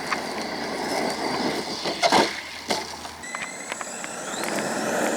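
Brushless electric motor of an Arrma Granite BLX 3S RC truck whining and rising in pitch as it accelerates, twice, over a steady rushing noise. A loud knock about two seconds in.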